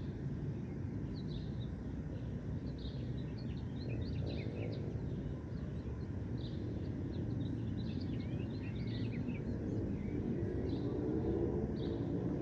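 Small birds chirping and twittering, short high notes repeating every second or two with busier runs of twittering about a third of the way in and again past the middle, over a steady low background rumble.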